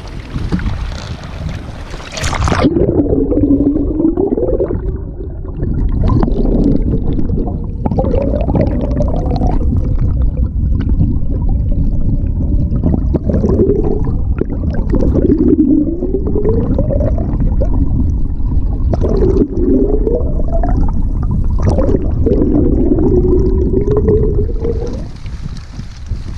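Humpback whale calls heard through a camera held underwater: about six low moans, each sliding up and down in pitch, over a muffled rush of water. The sound turns muffled about two seconds in as the camera goes under, and opens back up near the end as it surfaces.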